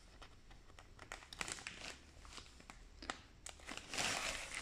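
Faint crinkling and rustling of packaging as vinyl records are handled and pulled out, with scattered small clicks and a longer rustle near the end.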